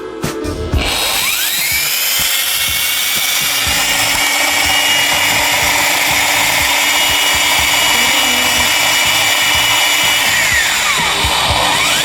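Kleenquip F7233B drywall sander with dust extraction switched on: its motor whine climbs quickly to a steady high pitch over a rushing noise and runs evenly. Near the end the whine drops away and climbs back up again.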